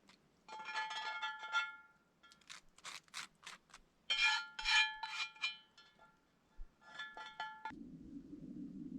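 Metal items clinking and scraping together in several bursts, each clink ringing briefly. Near the end a steady low hum sets in.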